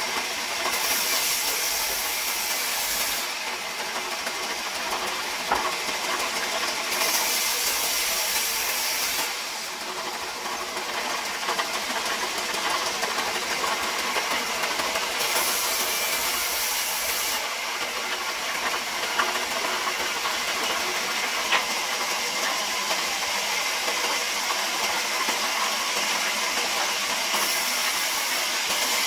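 Large vertical band saw running steadily while boards are fed through it, the blade cutting timber. The cutting noise grows brighter in several stretches of a couple of seconds each, as pieces go through the blade.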